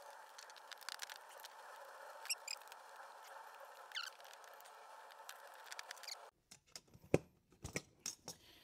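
Faint clicks and taps of hand tools on aluminium tripod leg parts, with a brief rising whir of a Ryobi cordless drill about four seconds in as a rivet is drilled out. A few sharper clicks come near the end.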